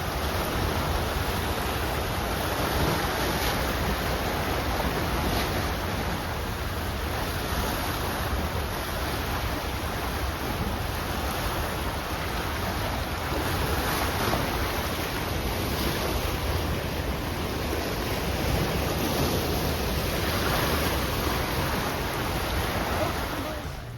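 Steady rush of water pouring down a dam spillway, with wind rumbling on the microphone.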